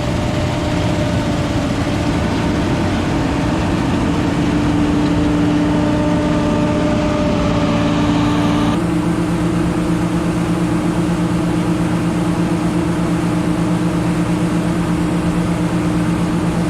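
Heavy tractor engine running steadily. About halfway through, its note steps up slightly and the sound turns duller.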